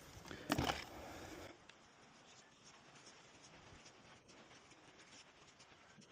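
Scratching and rubbing from hands working on the bicycle tyre and inner tube, with small clicks throughout and a louder rustle about half a second in.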